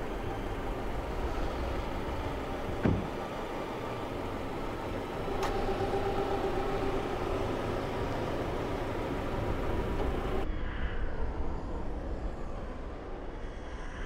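A car engine idles steadily, with a single sharp thump about three seconds in.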